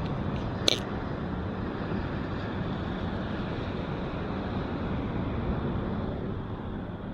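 Heavy rain pouring steadily in a storm, a dense even hiss, with one sharp click about a second in.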